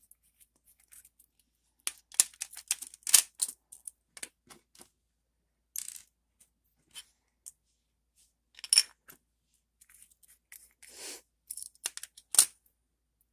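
Small clear plastic jars of flatback crystals being set back into a plastic storage case: a run of sharp, uneven plastic clicks and clatters. There is a dense flurry a couple of seconds in, scattered clicks after it, and the sharpest click near the end.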